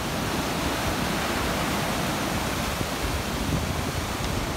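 Heavy surf from a big swell breaking and churning against rocks and a breakwater: a steady, dense rush of white water.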